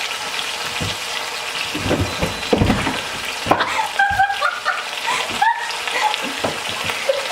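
Chicken sizzling in hot oil in an Instant Pot's inner pot on sauté, a steady frying hiss, with several knocks and clatters of utensils against the pot about two to four seconds in.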